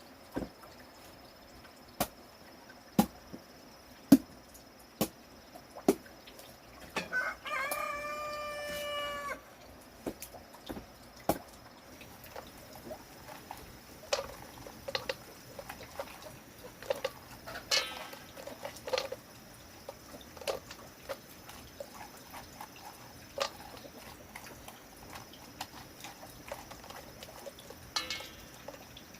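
A rooster crows once, about seven seconds in: one long call of a little over two seconds. Around it are scattered sharp knocks and clicks, the loudest about four seconds in, and short clucks and calls from hens later on.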